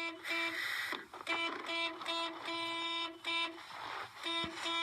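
Car alarm sounding: the car's horn blares in a fast run of on-off honks at one steady pitch, the honks uneven in length and spacing, with a longer break near the end.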